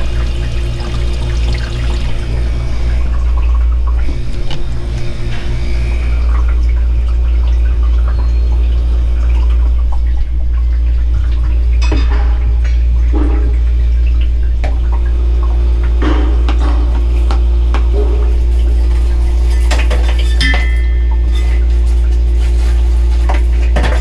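Hoshizaki ice machine running with its replaced water circulation pump: a steady low hum with water running and splashing over it. A few light metallic clinks come through in the second half.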